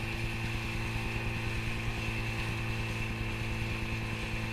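Tomos 10 outboard motor running steadily at speed on an Elan 401 boat, its pitch holding even, over the rush of water along the hull.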